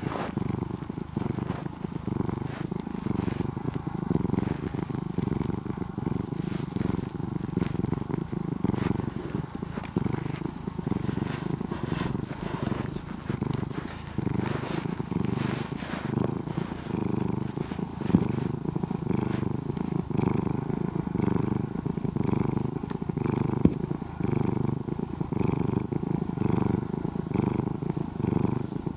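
Domestic cat purring right up against the microphone: a loud, low rumble that pulses steadily with each breath.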